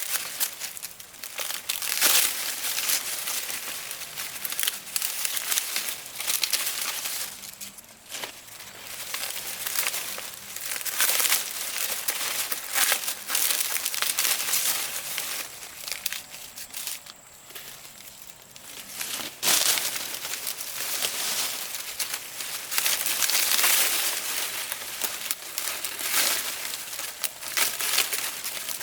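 Dry crinkling and rustling in uneven bursts, with quieter stretches between them, as of dry material being handled.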